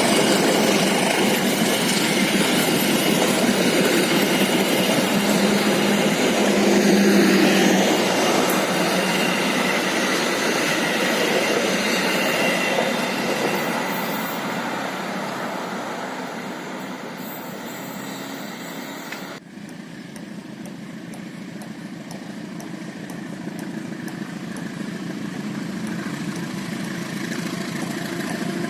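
A train passing on the rails, loud at first and slowly fading as it draws away. About two-thirds of the way through the sound drops off suddenly, and a quieter steady rumble follows that slowly grows louder.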